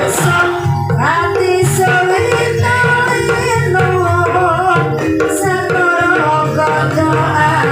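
Gamelan music accompanying an ebeg horse dance, with a wavering sung melody over hand-drum rhythm and a sharp high metallic hit about every three and a half seconds.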